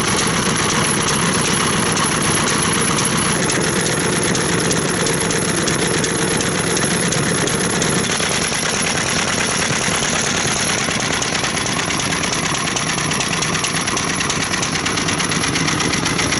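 Vintage Kyowa-type medium-speed stationary farm engine running steadily, its firing making a fast, even beat with no break.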